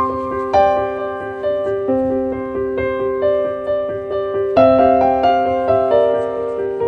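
Background piano music: a gentle melody of struck notes that ring on and fade, a new note every half second or so.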